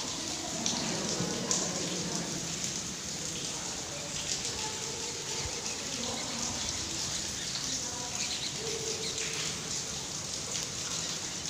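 A large colony of bats roosting on a cave ceiling, a dense mass of high squeaks and clicks with no break.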